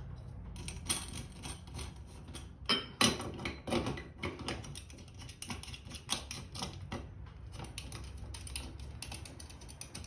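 Lamp housing being fitted and twisted onto a wall light fixture by hand: a run of irregular small clicks and scrapes, loudest about three to four seconds in.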